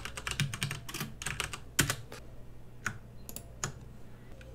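Computer keyboard typing: a quick run of keystrokes for about a second and a half, one louder single keystroke near two seconds in, then a few scattered key presses.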